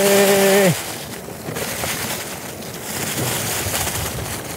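Mountain bike rolling downhill over a leaf-covered forest trail: a steady rush of tyres through leaves and wind on the microphone.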